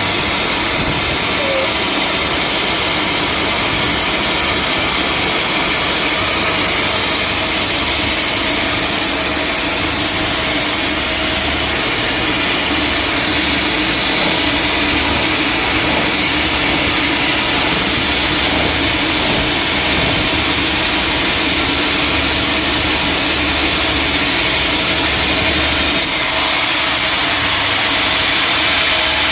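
Sawmill machinery running steadily: a loud, even mechanical noise with a low hum that never breaks.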